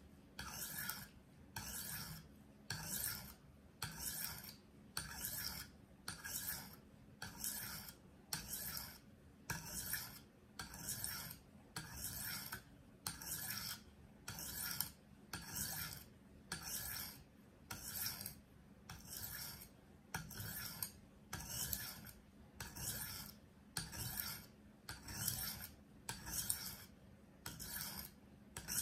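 140-grit stone on a KME guided sharpening system stroked along the steel edge of a paring knife under light pressure. It makes an even series of short rasping strokes, about four every three seconds. This is the coarse grind raising a burr along the full length of the blade.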